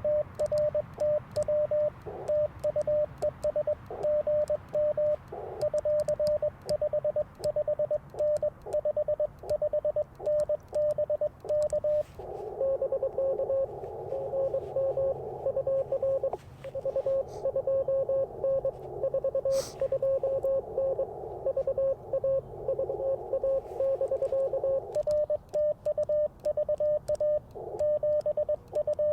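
Morse code from an Icom IC-705 transceiver: a single beep keyed in dots and dashes. For the first twelve seconds and again near the end, the operator is sending: the radio's clean sidetone, with faint ticks from the paddle key. In between, another station's Morse comes back slightly lower in pitch, over the hiss of the receiver's narrow CW filter.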